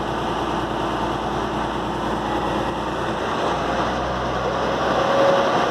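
Engine of a munck boom truck running steadily: a low, even drone with a steady hiss over it.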